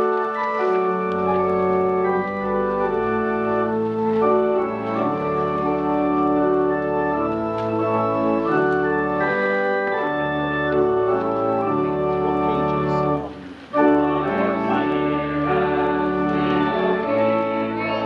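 Organ playing a hymn in sustained chords, breaking off briefly about thirteen seconds in and then going on.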